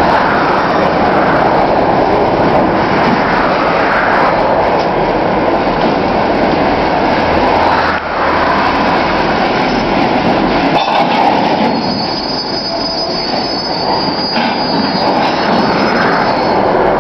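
Loaded freight cars rolling slowly through a rail yard during switching, steel wheels running on the rails with a steady loud rumble. A high wheel squeal sets in about twelve seconds in and holds for several seconds.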